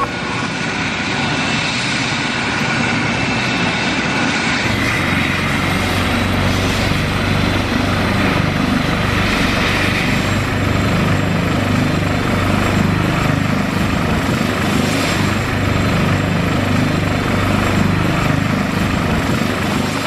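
Maryland State Police AgustaWestland AW139 helicopter running with its rotor turning: a steady, loud engine and rotor noise with a low, rhythmic beat from the blades.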